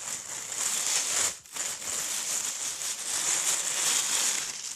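Plastic packaging crinkling and rustling as it is handled, with a short break about a second and a half in.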